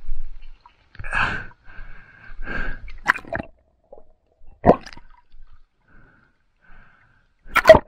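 Water gurgling and splashing around a swimmer in several short, separate bursts, the sharpest about halfway through and near the end.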